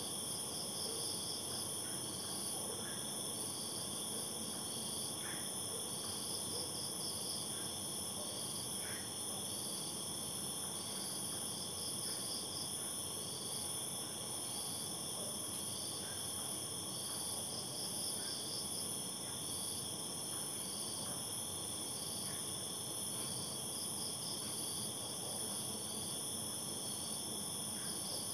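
Chorus of night insects: a steady high-pitched trill with shorter chirps repeating every second or two.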